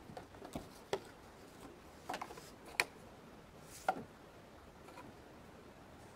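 Scattered light taps and clicks, about half a dozen spread irregularly, from hands working Play-Doh modelling dough with plastic tools on a tabletop.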